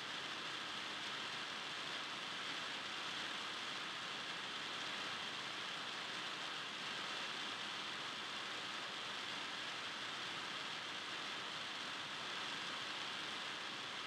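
Steady, even hiss with no distinct events: no ball bounces, whistles or voices stand out.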